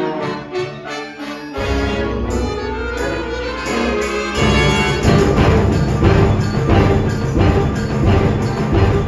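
Symphonic band playing a wind-band piece: sustained brass and woodwind chords. Low instruments come in about one and a half seconds in, and the full band grows louder about four seconds in.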